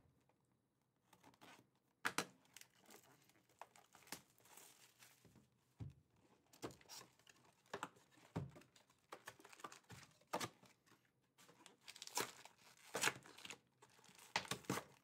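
Cardboard trading-card hobby box being torn open and its lid flap lifted, with crinkling of the plastic wrap and foil card packs being handled. The sound is a string of irregular short rips and rustles, a few louder ones about two seconds in and again near the end.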